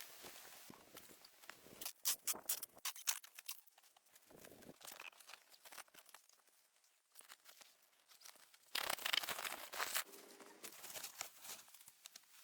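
Intermittent rustling and crinkling with sharp clicks, louder about two seconds in and again near nine seconds in.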